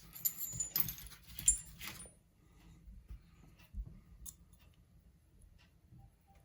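Small metal lock parts and a key clinking and rattling for about two seconds, with a few short high metallic rings, then only scattered faint clicks.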